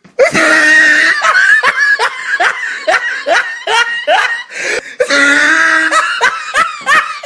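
Loud, high-pitched laughter in a quick run of rising whoops, about two or three a second, with a brief break about five seconds in.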